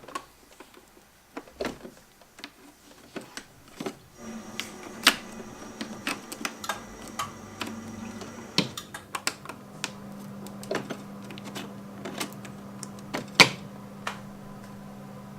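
Coffee maker being handled: a series of sharp plastic clicks and knocks. About four seconds in, the machine starts a steady electrical hum with a faint high whine over it that stops about halfway through, while the hum carries on.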